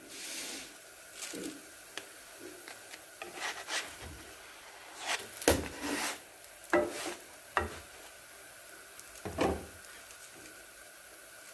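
Msemen flatbread sizzling on a flat black griddle, with a series of sharp scrapes and knocks as the bread is turned and pressed on the pan, the loudest about halfway through.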